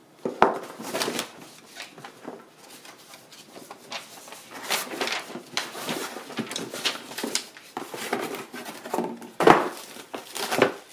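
Paper manual and setup sheets rustling and being leafed through, with irregular scrapes and knocks of cardboard packaging being handled, the loudest handling near the end.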